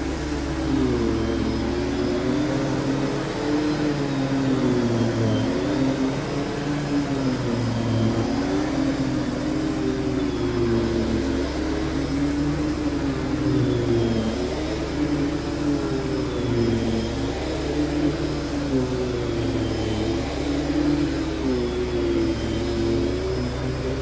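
Cirrus canister vacuum cleaner running, its powered floor nozzle pushed back and forth over carpet; the steady motor hum wavers up and down in pitch every couple of seconds.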